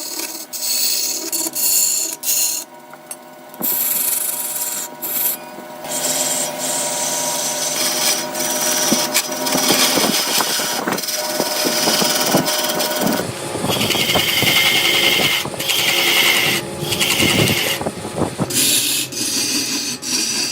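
Power tool cutting and scraping into wood, running over a steady motor hum, with a few short breaks in the cutting.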